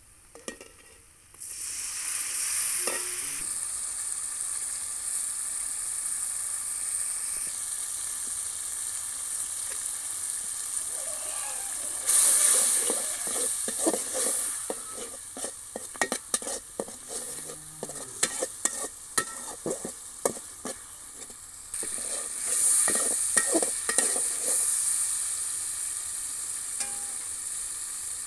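Onions and ground spices sizzling in hot oil in an aluminium pot. The sizzle starts abruptly about a second and a half in. Partway through there are two stretches of a spatula scraping and stirring against the pot, which are the loudest part.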